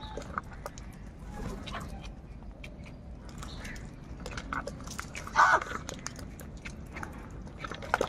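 House crows pecking at food in a plastic tub: many quick, sharp beak taps and clicks, with one loud short caw about five and a half seconds in.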